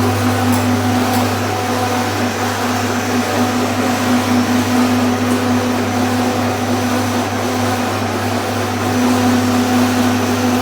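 Hookah charcoal making machine running with a steady, even hum from its electric motor.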